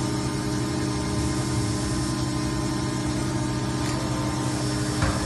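Steady hum of running factory machinery, with several steady low tones held throughout. A short click sounds near the end.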